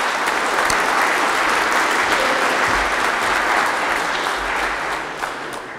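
An audience applauding, a steady, loud clapping that dies away near the end.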